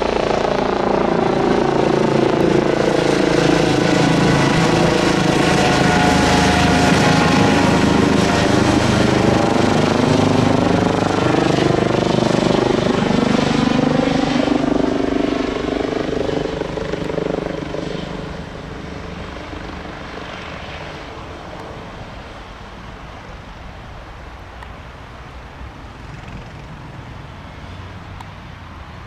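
Eurocopter EC135 helicopter's rotors and turbines passing close with a sweeping, phasing tone, then fading after about fifteen to eighteen seconds to a quieter steady sound as it moves away.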